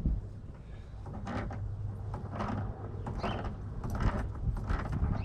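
Wrench breaking loose and turning the threaded cold-water connection at the bottom of a water heater, giving about five short creaks and scrapes, roughly one a second.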